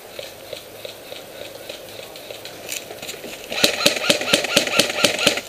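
Airsoft gunfire: after a quiet stretch with a few faint clicks, a rapid, even string of sharp clacks starts about three and a half seconds in, at about seven shots a second.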